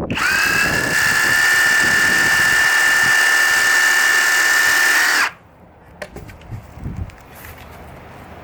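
Ozito PXC 18V brushless reciprocating saw starting up and running with a steady high whine for about five seconds, cutting into a bottlebrush branch, then stopping abruptly. A few faint knocks and handling noise follow.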